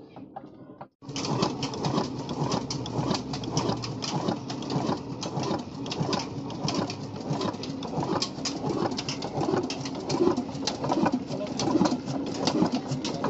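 Old black single-cylinder horizontal diesel engine with a large flywheel running, a steady rhythmic knocking and clatter. The sound starts abruptly about a second in.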